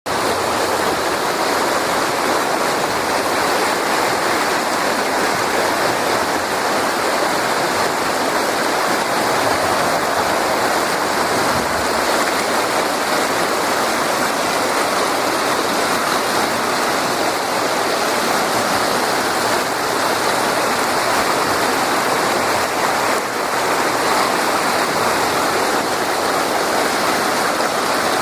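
Water pouring over a dam spillway, rushing steadily and loudly without letting up.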